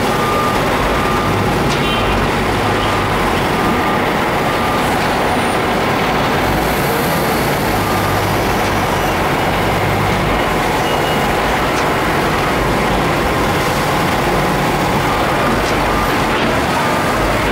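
Loud, steady industrial machinery noise from a bagging plant: a wheel loader's engine feeding the hopper, with the bagging machine and its air compressor running. A short high beep comes and goes.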